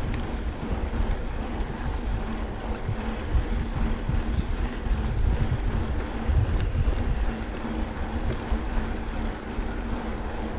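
Wind rumbling on the microphone, with a faint steady hum underneath and a few light clicks.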